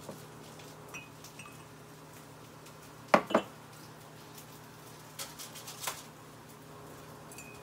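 Glass and china tableware clinking as a small glass milk pitcher and a tea mug are handled on a counter: two sharp clinks about three seconds in, then a run of lighter taps a couple of seconds later.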